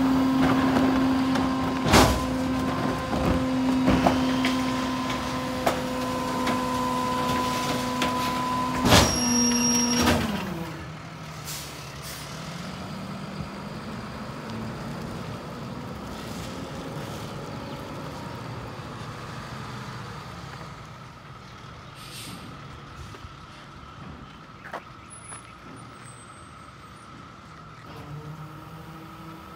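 Ez-Pack Apollo rear-loader garbage truck with its engine held at a steady raised speed to drive the packer hydraulics, with several sharp metallic bangs. About ten seconds in the engine speed falls away, and the truck then runs quieter and lower as it moves off down the street.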